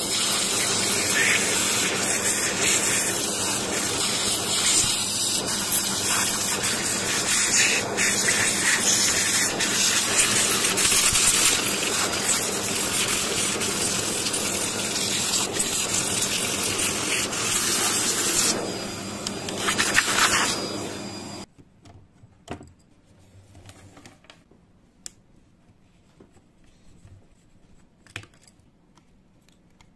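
Vacuum cleaner running with a steady rush of air and a faint motor hum as its flat nozzle sucks dust and grime from a keyboard's bare key plate. It cuts off suddenly about 21 seconds in, leaving faint clicks as a screwdriver turns the plate's screws.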